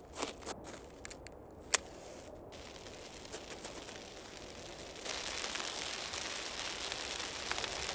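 A few light clicks, then the lit fuse of a cartoon bomb sizzling steadily, louder from about halfway through.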